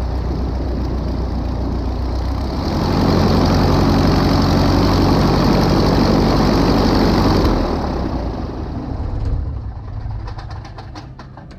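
Single-engine light aircraft's piston engine idling with its propeller turning, getting louder about three seconds in, then cutting off suddenly past the middle as the engine is shut down. The propeller winds down with a few slowing clicks before stopping near the end.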